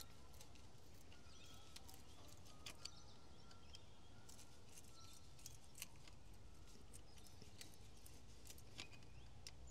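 Near silence with faint, scattered small clicks of a hand tool working a hose clamp on the engine's oil-cooler hose.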